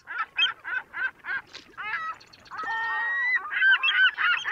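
Birds honking: a quick run of short honks, about three a second, then a longer call and several birds honking over one another near the end.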